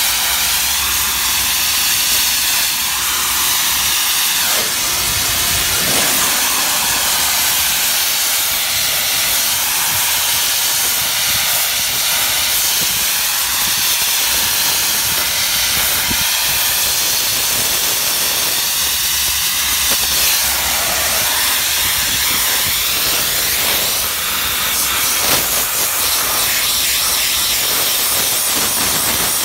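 DOFF superheated steam cleaner's lance jetting steam against brickwork: a loud, steady hiss.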